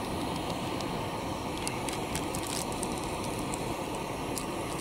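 A steady low background rumble, with faint light ticks and a rustle about two seconds in as powder is tipped from a paper stick packet into a wooden kuksa cup.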